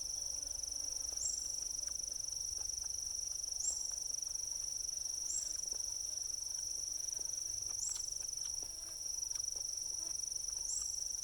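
Steady high-pitched insect chorus, with a short upward chirp repeating about every two seconds, and faint scattered ticks.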